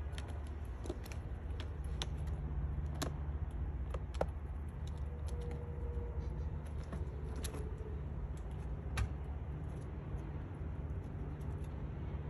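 A squirrel's claws clicking and scratching on a cardboard box, in scattered light ticks over a steady low background rumble.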